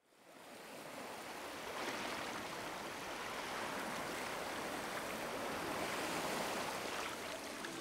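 Steady rushing-water noise, fading in over about the first second and then holding even.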